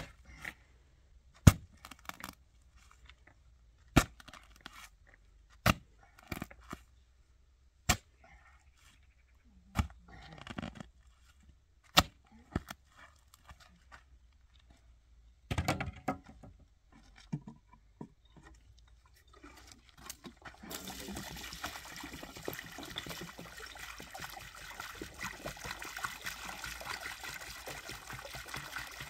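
A shovel stabbing into a pile of gravel, a sharp scrape about every two seconds through the first half. From about two-thirds of the way through, a steady rush of water being poured from a bucket into a wheelbarrow.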